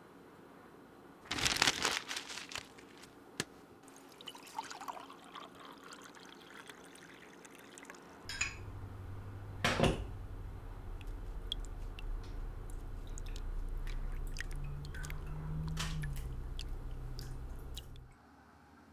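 Kitchen sounds of tea being made: a burst of rustling and water pouring and dripping, then a click and a sharp knock. After that a low steady hum runs for about ten seconds and cuts off suddenly near the end.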